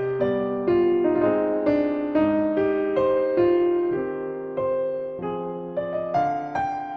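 Background instrumental piano music: a melody of single struck notes, about two a second, each fading away, over a lower bass line.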